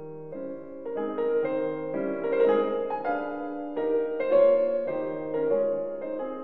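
Background piano music: a melody of held notes changing two or three times a second.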